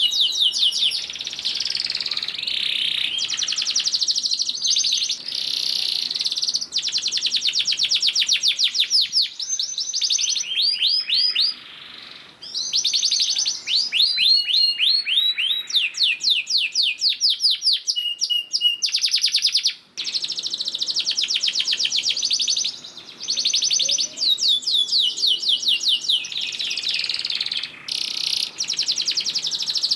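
Domestic canary singing loud, long trills of very fast repeated notes, the rolling 'ngerek' style, sweeping up and down in pitch with short breaks about 12 and 20 seconds in.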